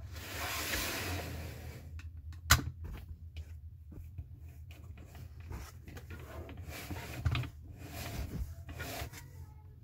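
Handling noise: a model car's display base set on a display turntable and the turntable turned by hand, with rubbing and scraping and a sharp click about two and a half seconds in.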